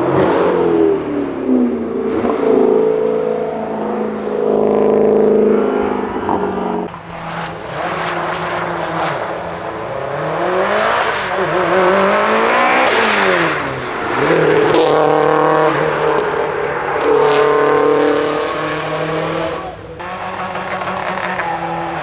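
Subaru Impreza competition cars' flat-four engines running and being revved. Around the middle, the engine pitch rises and falls sharply more than once.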